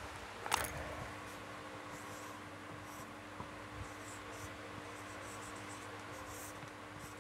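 Dry-erase marker writing on a whiteboard: faint, short squeaky scratches as the figures are drawn. There is a sharp click about half a second in, over a faint steady hum.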